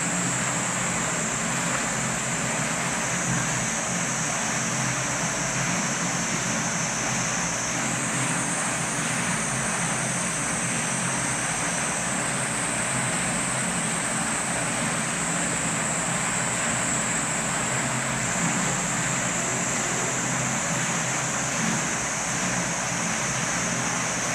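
Steady outdoor din: a continuous high buzzing chorus, typical of summer cicadas, that shifts up and down in pitch in steps every few seconds, over a wash of rushing noise and a low hum.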